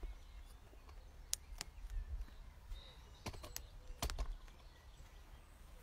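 Handling noise from the recording phone or camera being adjusted by hand: about half a dozen sharp clicks and taps, some in quick pairs, over a low rumble.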